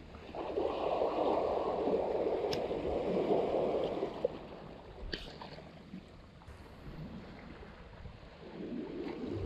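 Small sea waves washing in over rocks and pebbles: a loud surge of surf for the first few seconds, then a quieter wash that swells again near the end, with a couple of faint clicks.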